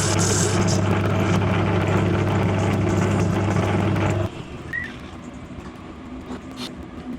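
Machine tool's electric motor running with a steady hum, then cutting off abruptly about four seconds in, leaving only faint clicks.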